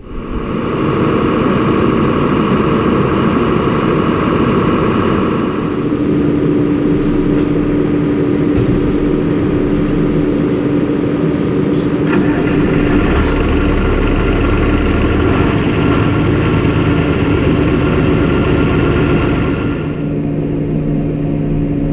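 Tractor engine running steadily, with a high whine over it that stops about six seconds in.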